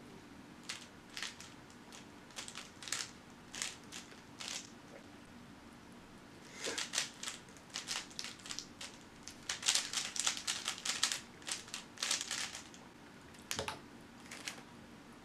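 A 3x3 Rubik's cube being turned fast by hand: rapid runs of light plastic clicking, scattered at first and densest in the middle, with a heavier knock near the end.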